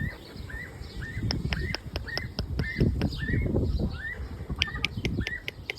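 A bird chirping over and over, one short high call about twice a second. Sharp clicks come through the middle and near the end, over low rustling and knocking.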